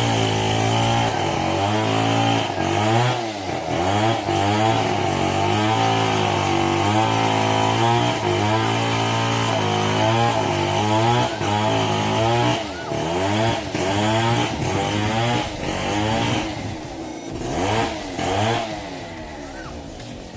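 Small petrol engine running at high speed, its note steady but wavering up and down, fading over the last few seconds.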